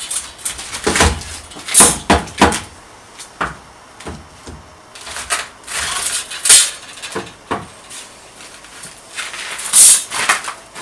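Knocks, bumps and scrapes of a wooden door and its frame being handled and set in place, with rustling bursts in between.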